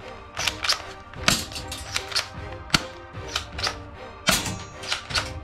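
Plastic Desert Eagle-style toy pistol clicking and snapping as it is handled and its parts are fitted and worked, irregular sharp clicks, often in pairs, over background music.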